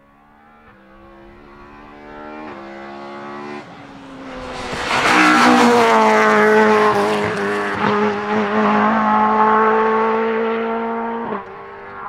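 Talbot Avenger rally car's four-cylinder engine under hard acceleration. Its note climbs and steps back down with each upshift as it draws closer, is loudest about five seconds in, then holds a high steady note at full throttle. The sound drops off sharply near the end.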